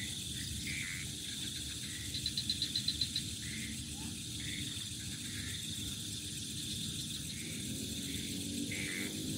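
Crickets chirping at night: a steady high insect chorus, with one rapid burst of about nine short chirps a bit over two seconds in. A steady low rumble sits underneath.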